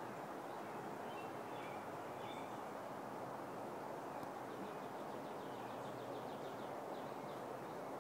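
Steady outdoor background noise with faint, scattered high bird chirps, and a brief rapid trill a little past the middle.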